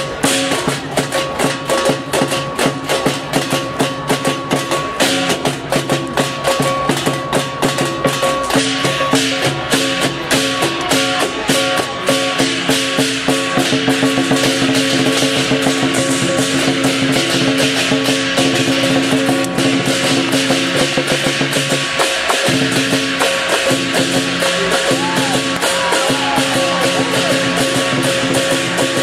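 Lion dance percussion: a large drum with clashing cymbals and gong playing a fast, driving beat, over steady ringing tones. About halfway through the strikes crowd together into a denser, more continuous clatter.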